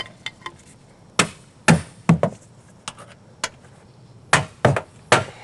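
Hammer driving nails to fasten a metal roof shingle: about ten sharp separate blows in irregular clusters, a few quick strikes at a time.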